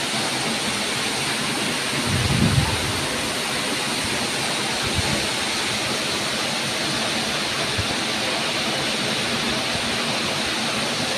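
Waterfall rushing: a steady, even rush of falling water, with a brief low rumble about two seconds in.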